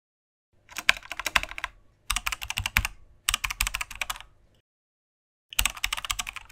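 Keyboard typing sound effect: rapid clattering keystrokes in four runs with short pauses between them, the longest pause just before the last run.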